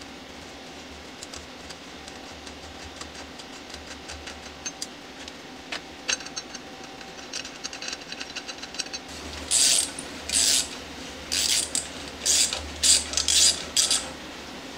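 Hand ratchet wrench clicking faintly as a bolt is turned into a steel plate held in a bench vise, with light metal ticks. About nine and a half seconds in comes a run of about eight short, loud rustles.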